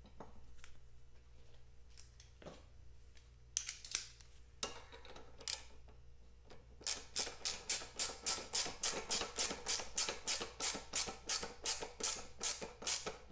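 Ratchet wrench clicking in quick, even back-and-forth strokes, about four a second, as it turns a fastener at the top of a motorcycle's front fork. The strokes begin about halfway through, after a few scattered scrapes and clicks of metal tools.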